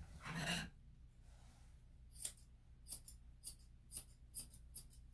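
A brief rustle near the start, then a run of a dozen or so short, sharp clicks at an uneven pace from about two seconds in.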